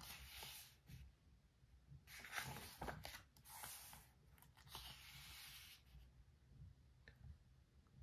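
Pages of a photo book turned and smoothed by hand: three faint rustling swishes of paper.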